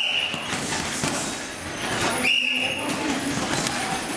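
Boxing gym ambience: gloves thudding on punch bags and background voices in a large room, with a short high beep twice, about two seconds apart.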